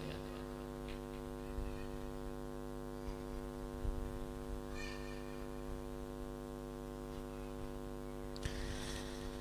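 Steady electrical mains hum from the sound system, a stack of evenly spaced steady tones. A faint soft noise comes about five seconds in and again near the end.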